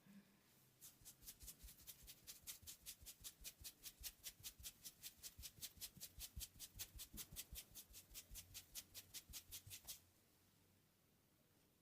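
A massager's hands tapping rapidly and evenly on the client's body as a massage technique, about five crisp pats a second. The tapping stops suddenly near the end.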